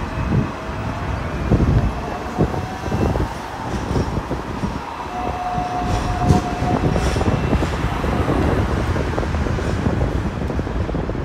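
Hong Kong double-decker electric tram running along its tracks: a steady rumble and rattle with several sharp knocks, and a held whine for about two seconds midway.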